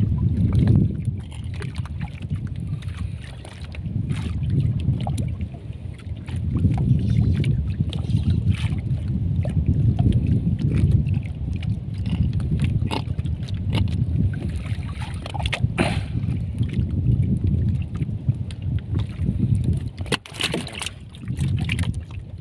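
Low rumble of wind buffeting the microphone, swelling and easing every few seconds, with scattered light clicks and knocks as a fishing longline is hauled in by hand.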